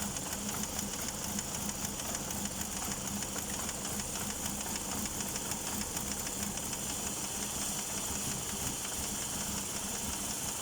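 Chery Elara 2.0 engine running steadily with a fast, even ticking knock, which the owner takes to be typical of a hydraulic lash adjuster.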